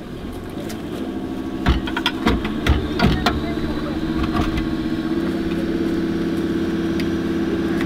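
A vehicle engine idling steadily, its hum growing firmer about five seconds in. Over it, a run of sharp metal clanks and knocks in the first half as the winch post is fitted at the towbar.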